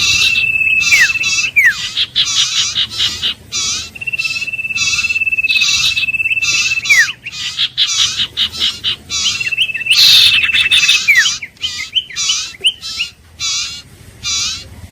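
Iora singing: a long, steady trilled whistle held for over a second and ending in a quick falling note, repeated three times, over a dense run of fast, repeated chirping notes.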